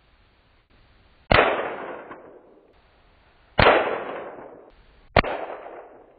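.22 rimfire rifle shots, three of them: about a second in, near the middle, and just after five seconds. Each is a sharp crack followed by a trailing decay of about a second.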